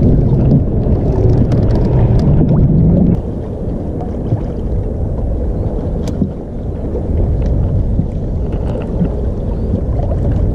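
Wind rumbling on the microphone over sea water washing against a small rowing boat, steady with a few faint clicks. The sound drops in level about three seconds in.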